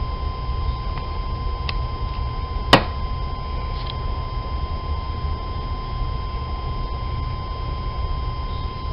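Halloween electric-fence light string's sound effect: a steady low electrical hum, broken by one sharp zap-like snap a little under 3 seconds in and a faint click before it.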